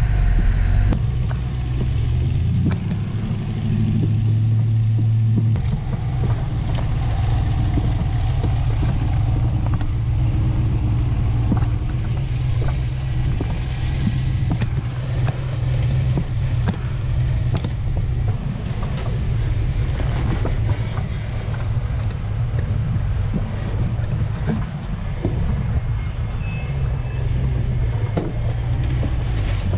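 Rock-crawler engines running at low revs as the buggies creep over rock, a steady low rumble with clicks and knocks over it.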